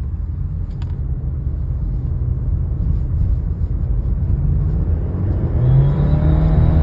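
Subaru Levorg's turbocharged boxer engine and exhaust running with a deep, steady rumble. About five and a half seconds in it gets louder and rising tones come in as the revs climb.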